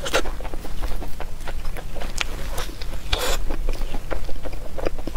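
Close-miked eating sounds: chewing and biting, an irregular run of short wet clicks and smacks, with a brief louder noisy crunch a little past three seconds in.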